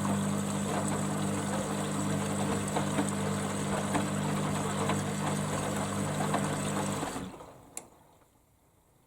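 Hoover Dynamicnext washer-dryer during its rinse, a steady hum with rushing water. It cuts off about seven seconds in, followed by a single click.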